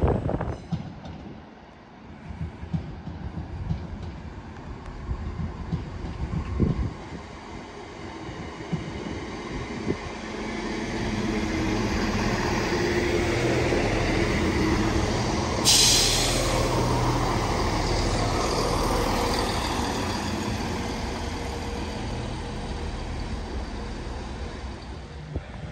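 A diesel train running at the station: its engine sound builds from about ten seconds in, holds steady and eases off near the end, with a short sharp hiss of air about two thirds of the way through.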